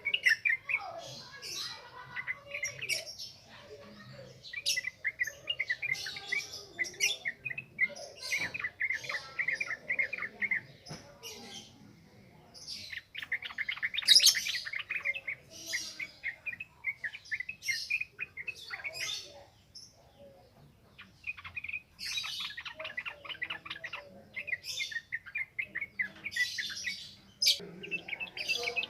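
Yellow-vented bulbul (trucukan) singing a rapid, continuous chattering song in long runs of quick notes mixed with sharp high chips, with short breaks between bouts.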